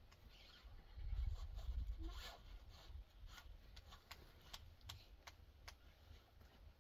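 Faint rustling of cloth as a length of printed dress fabric is handled and gathered, with a few short soft clicks and a low rumble about a second in.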